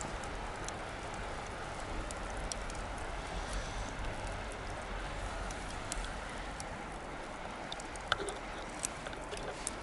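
Bonfire crackling: a steady hiss of burning wood with scattered sharp pops, the loudest about eight seconds in.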